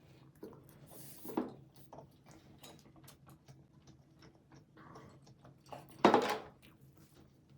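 Close-miked eating of meatballs and rice: soft wet chewing and many small mouth clicks. There is a brief louder sound about a second and a half in, and a much louder noisy one about six seconds in.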